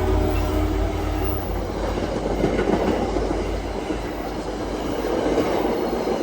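Train running past on the rails, a steady rumble of wheels. The last of its horn blast dies away in the first second.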